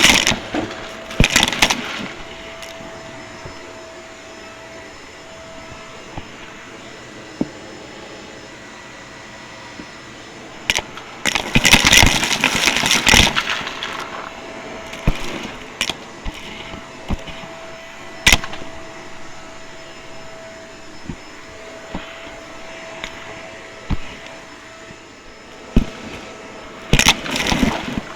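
Vacuum cleaner running with a steady hum, broken by sharp clicks and knocks and by loud crackling, rattling bursts, the longest about a third of the way in and another near the end.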